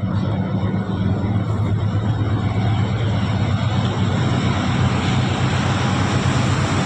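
Cement plant vertical roller mill running: a loud, steady industrial drone, a low hum under a broad rushing noise.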